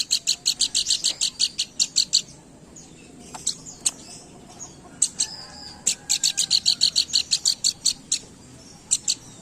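Pelanduk bukit, a babbler, singing hard: rapid trains of sharp, high chirps, about seven a second, in runs of one to two seconds broken by short pauses with a few single notes.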